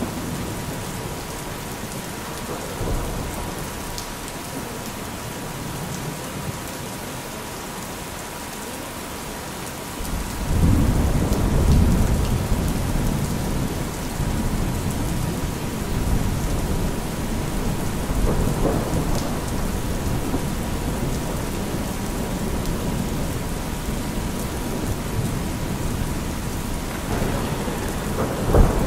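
Steady rain with rolling thunder, a heavier rumble coming in about ten seconds in and a sharp clap near the end, under a continuous 963 Hz sine tone.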